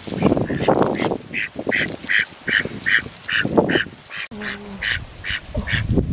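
Domestic ducks quacking in a steady series of short calls, about two or three a second, with a brief break about halfway. Leaves and grass rustle underneath as the ducks are handled.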